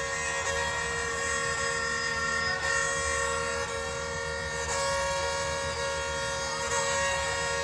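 Live minimalist drone music: amplified violin and accompanying instruments holding a steady chord of many tones, each rich in overtones, without change.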